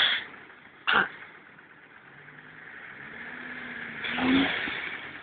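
Volkswagen Transporter van's engine revving up on snow, its pitch rising and peaking about four seconds in with a rush of noise, then dropping back. A short sharp knock sounds about a second in.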